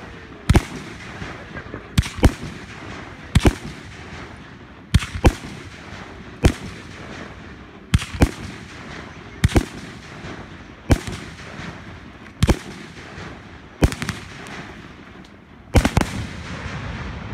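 Aerial fireworks launching and bursting overhead: sharp bangs about every second and a half, often two close together, with the loudest pair near the end.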